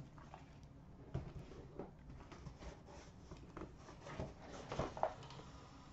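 Cardboard box being handled and opened: faint, irregular taps, scrapes and rustles of cardboard, with a few slightly louder knocks about four to five seconds in.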